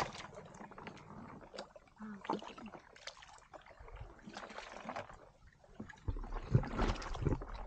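Shallow muddy water sloshing and splashing irregularly as a person wades and gropes through it by hand. Louder low rumbling and thumps come in over the last second or two.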